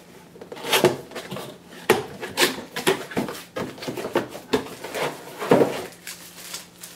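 Handling noises as an Opteka X-Grip camera action grip is taken out of its packaging and turned over: irregular knocks, clicks and rattles of plastic, with the loudest knock about five and a half seconds in.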